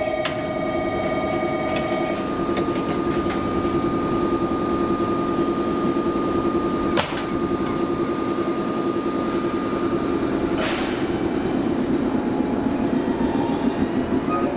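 Kokutetsu 415 series AC/DC electric multiple unit standing at a platform with its equipment humming steadily. A single sharp thud comes about seven seconds in as the doors shut, a short burst of hissing air follows a little after ten seconds, and near the end the train starts to pull away.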